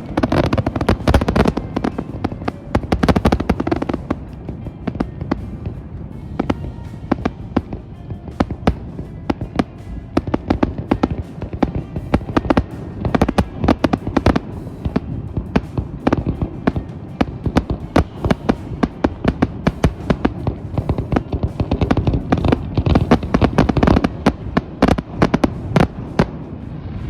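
Fireworks display: a rapid run of sharp bangs, pops and crackles, several a second with no letup, loudest right at the start.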